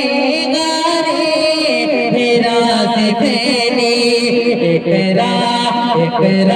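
A man singing a naat into a microphone, holding long, wavering, ornamented notes.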